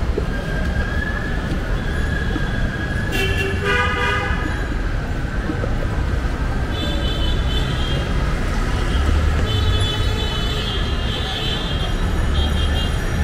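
Busy street traffic: a steady din of passing vehicles with horns sounding now and then, one lower horn blast about three seconds in and several higher-pitched toots later on.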